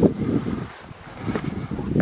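Wind buffeting the microphone in uneven gusts, with a lull about halfway through.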